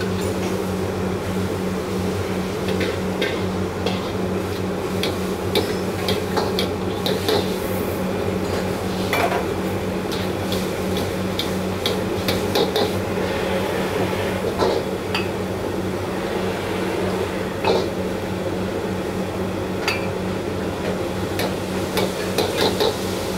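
Metal ladle clinking and scraping against a wok while stirring a sauce, in irregular knocks, over a steady low hum.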